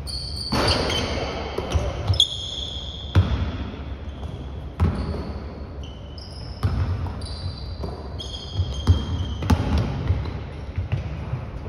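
A pickup basketball game on a hardwood gym floor: a basketball thuds as it is dribbled and bounced, and sneakers squeak in short, high squeals as players cut and stop. It echoes in a large hall.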